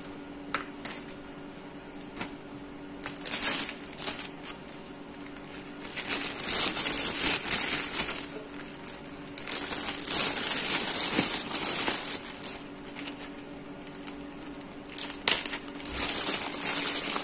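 Clear plastic zip-lock freezer bag crinkling as it is handled and filled with shredded chicken, in about four separate bursts with a few small clicks between.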